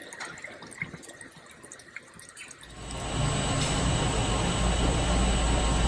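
Faint drips and ticks, then about three seconds in a steady rush of running water with a low rumble.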